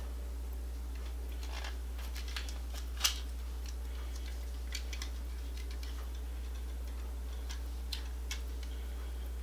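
Scattered small clicks and taps from handling old wiring and tools at an electrical switch box, one sharper click about three seconds in, over a steady low hum.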